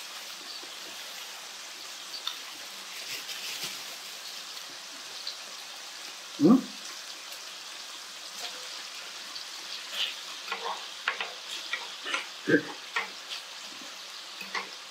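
Sliced duck meat sizzling steadily in a frying pan, with scattered light clicks of chopsticks and two short, louder sounds about six and twelve seconds in.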